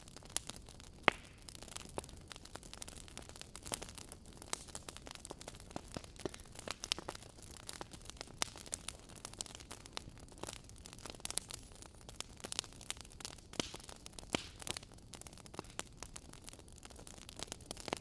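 Wood fire crackling in a fireplace: irregular snaps and pops over a soft steady hiss, with one sharper pop about a second in.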